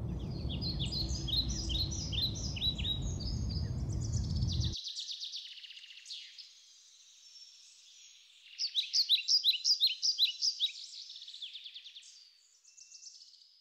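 Small songbirds singing: repeated quick, downward-sweeping chirps, with a loud run of notes about nine seconds in. A low rumbling noise lies under the birds for the first five seconds and cuts off abruptly.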